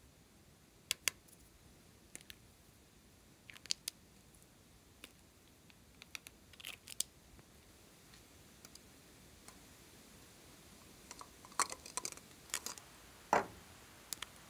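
Light plastic clicks and taps of small toy containers and caps being handled, opened and shaken out over slime, at irregular intervals. They come more often near the end, with one louder knock.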